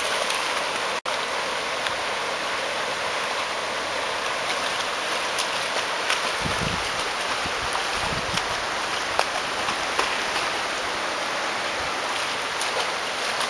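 Steady rushing hiss of a flooded river at high water, flowing fast past the yard. Two brief low thumps come about six and eight seconds in.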